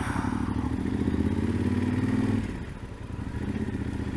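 Yamaha Super Tenere XT1200ZE's parallel-twin engine running under way through its Delkevic exhaust. The engine note drops off about two and a half seconds in, as if the throttle is eased, then picks up again.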